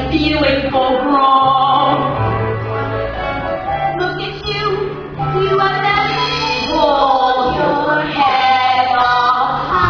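A song from a stage musical: voices singing a melody over instrumental accompaniment, with steady bass notes changing every second or two beneath the sung lines.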